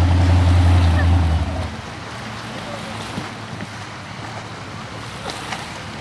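Flat-bottom V-drive race boat's inboard engine running at speed with a deep, steady drone, which drops away sharply about a second and a half in as the throttle comes off and the boat settles off plane. After that only a hiss of wind and water remains.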